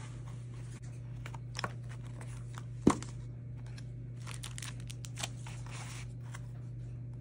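Cardboard box and plastic packaging being handled as a camera kit is unpacked: scraping and rustling, a sharp knock about three seconds in, then a plastic bag crinkling for a couple of seconds. A steady low hum runs underneath.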